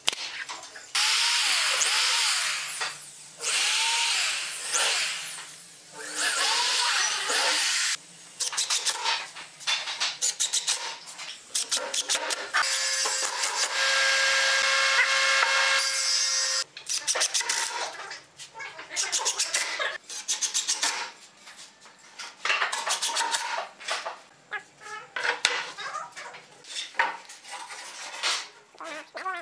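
Woodworking sounds on pine frames: three long bursts of rubbing or sawing on wood, then a power tool's motor running steadily for about four seconds midway. A run of short knocks and clatter of wooden pieces being handled follows.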